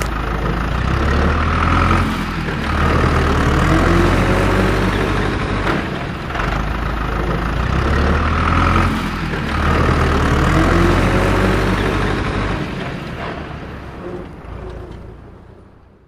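Heavy tractor engine sound with a deep rumble, rising and falling in pitch in repeating swells about every four seconds, fading out near the end.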